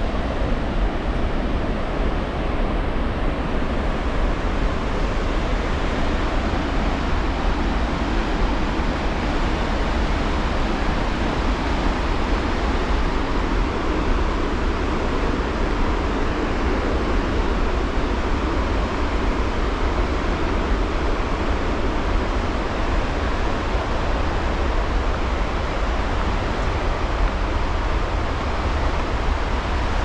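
Målselvfossen waterfall: a large volume of river water pouring over the falls in a steady, unbroken rush.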